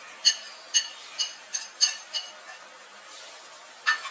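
Metal spoon clinking against a plate and pan while scraping dry ground masala into the pan: about six sharp, ringing clinks in the first two seconds, then one more near the end.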